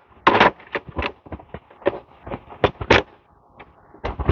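Wire being worked through holes in a container: irregular sharp clicks, scrapes and rattles, with the loudest ones about half a second in and around three seconds in.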